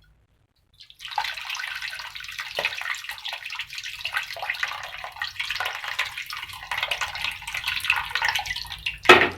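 Water splashing and trickling as tamarind water is handled for the curry, starting about a second in; a sharp knock near the end.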